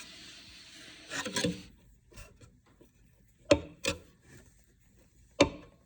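Vice Grip locking pliers working a sideways brad nail back and forth in wood: a short scraping rub about a second in, then three sharp clicks.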